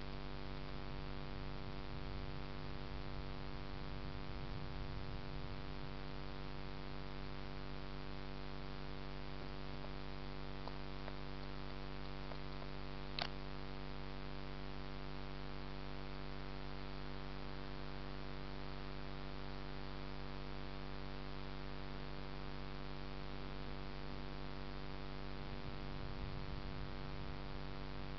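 Steady electrical mains-type hum with a buzzy edge and a faint hiss behind it, with one short click about halfway through.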